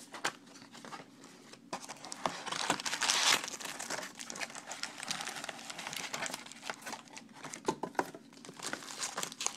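Crinkling of wrapped trading-card packs being handled as a stack of them is lifted out of an opened cardboard hobby box and set down, loudest around three seconds in.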